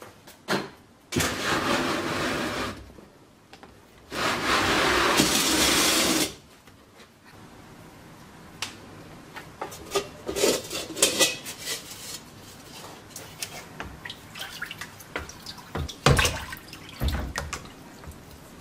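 Water pouring into a plastic storage box, twice for a couple of seconds each, then irregular splashing and knocks as a rusted steel helmet is lowered into the water.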